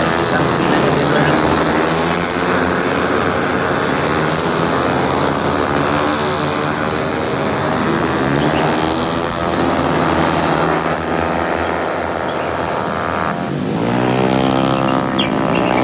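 Racing car engines revving hard, their pitch rising and falling as the cars accelerate and lift through the course. About 13 seconds in the sound dips briefly, then an engine winds up again in a steep rising rev.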